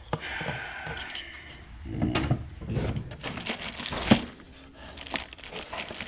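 Small metal clicks and scraping of a fine pick tool working a spiral retaining ring off a bearing in a Mustang T5 transmission, with one sharp click about four seconds in.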